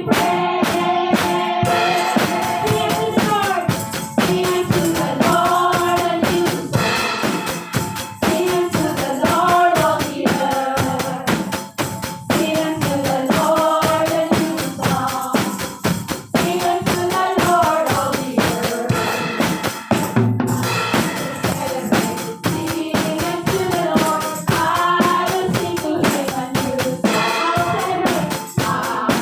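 A worship song with several voices singing together over a steady beat of tambourine and drums.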